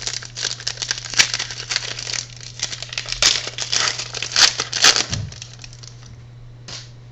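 Crinkling and rustling of card packaging as football trading cards are handled, dense and crackly for about five seconds and then stopping, over a low steady hum.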